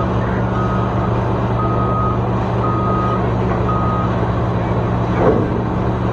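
Backup alarm of heavy mining equipment beeping at one pitch, about once a second, over the steady drone of large diesel engines at a coal loading face. The beeps stop about four seconds in, and a brief louder sound follows a little after five seconds.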